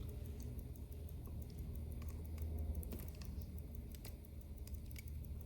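Faint, irregular small clicks and taps of watchmaking tools handling a wristwatch movement, over a steady low hum.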